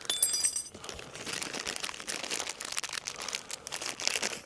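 Clear plastic tool pouch crinkling and rustling as hands rummage in it for tools. A brief high metallic ring at the start as the metal spanners clink together.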